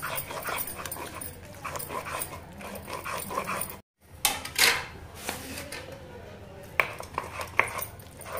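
A stone batta rolled and pressed by hand over roasted eggplant and wet spice paste on a stone sil, giving irregular wet squelching and stone scraping, with a few sharp short sounds near the end.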